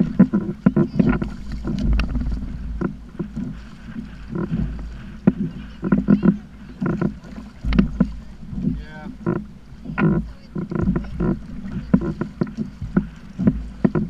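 Plastic sit-on-top kayak on choppy water, with water splashing and slapping irregularly against the hull and many short knocks.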